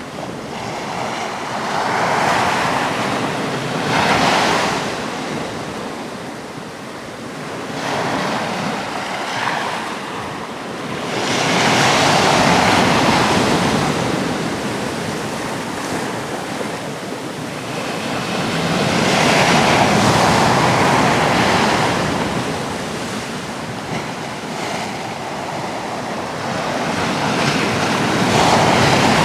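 Atlantic surf breaking on a rocky shore: waves crashing and washing back in repeated surges every few seconds, with the biggest swells about a third of the way in, around two-thirds through and near the end. Wind buffets the microphone under the surf.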